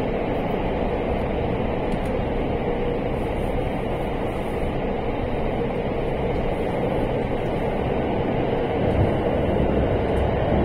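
Cabin of an electric JR West express train running through a tunnel: a steady rumble of wheels on rail and running gear, which grows louder and deeper near the end.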